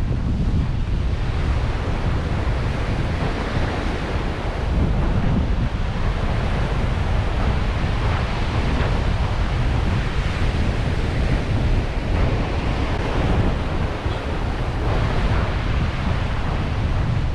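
Ocean surf washing on a beach, a steady rushing wash that swells and eases, with wind buffeting the microphone.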